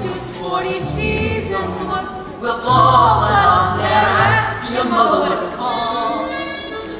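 Young student voices singing a show tune, several at once, over a musical accompaniment with steady bass notes.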